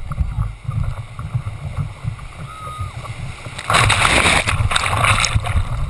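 Ocean surf sloshing around a camera held in the water, with a constant low churning rumble. About four seconds in, a wave washes over the camera with a loud rushing splash lasting about a second and a half.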